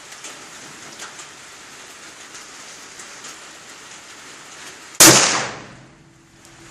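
A single shot from a .308 rifle fitted with a JP 30-cal muzzle brake, about five seconds in, its sharp report dying away over about a second.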